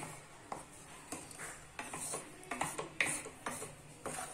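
Wooden spoon stirring a thick onion-tomato masala in a steel kadai, with irregular scrapes and knocks of the spoon against the pan, several a second.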